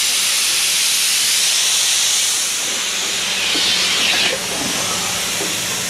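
A steady, loud hiss that eases off slightly about four seconds in, with a faint steady hum beneath it.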